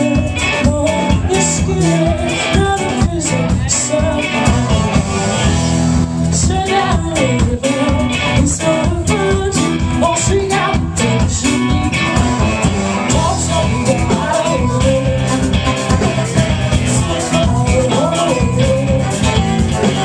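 Live band playing: a woman singing lead over electric guitar, bass and drums, with a horn section of saxophone and trombone. It is loud and unbroken, heard from within the audience.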